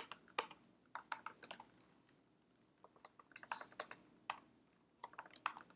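Faint typing on a computer keyboard: a string of separate keystrokes, a pause of about a second just before the middle, then more keys in quick runs.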